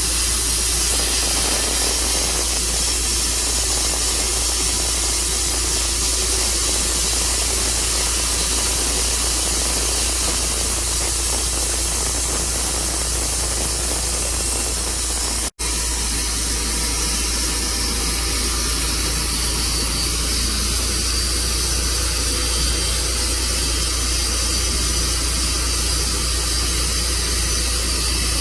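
A Tru Cut sawmill running steadily with a loud, even machine noise. The sound cuts out for an instant about halfway through.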